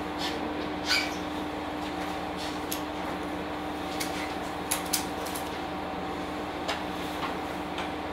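A stationary Setsugekka diesel railcar heard from inside the cab: a steady hum, with a few sharp clicks and knocks. The loudest knock comes about a second in, and a quick pair comes near the middle.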